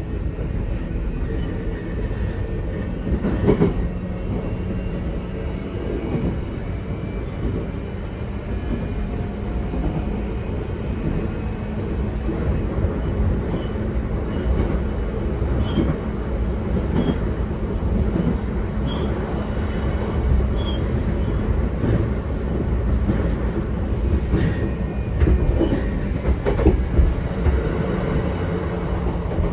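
JR East E131-500 series electric train running between stations, heard from inside the car: steady wheel-on-rail rumble with scattered clicks over rail joints and a steady low hum that sets in a few seconds in.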